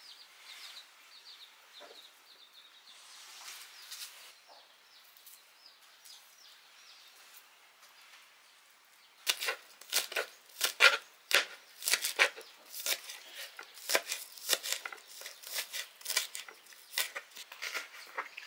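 Knife chopping on a board: a quick, uneven run of sharp strokes that starts about nine seconds in, after a stretch of faint background sound.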